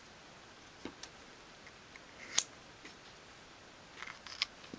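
A few light clicks and taps of a wooden cocktail stick and fingertips against a small wooden miniature table while excess glue is scraped off. The sharpest click comes about two and a half seconds in, with a few softer ticks near the end.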